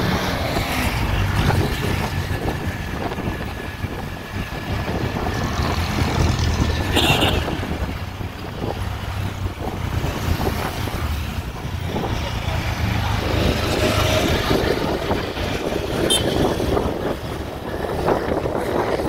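Motor scooter riding down a street, its engine running under wind buffeting the microphone. A brief sharp click about seven seconds in.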